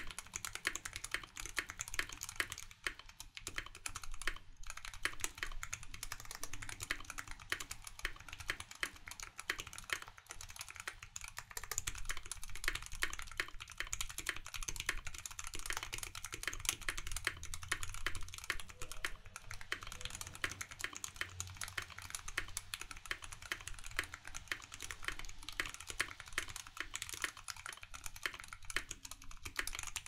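Continuous touch-typing on a TX65 mechanical keyboard with a brass plate, lubed T1 tactile switches and EnjoyPBT keycaps: a dense, steady stream of keystroke clacks.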